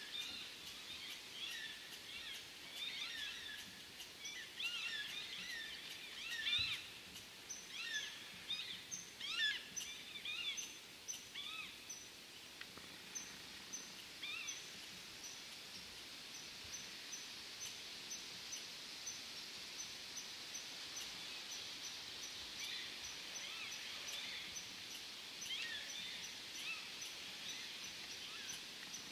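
Birds chirping and singing, many short calls overlapping, busiest in the first half. From about seven seconds on, a steady series of high ticks, about two a second, runs on over a faint hiss.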